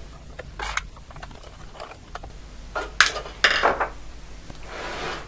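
Screwdriver working out the screws that hold the power connector to a metal computer chassis: a few sharp metallic clinks and scrapes, the loudest about three seconds in, then a soft scuffing noise near the end.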